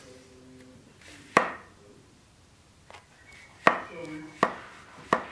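A sword's scabbard being fitted onto a greatsword blade, with four sharp knocks of the scabbard's metal throat fitting against the blade and crossguard, about a second in and then three in quick succession near the end. The second knock leaves a short metallic ring.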